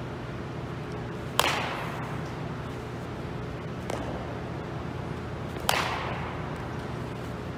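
Baseball bat striking a ball twice, a few seconds apart: sharp cracks that ring on and echo in a large indoor gym. A fainter knock falls between the two hits.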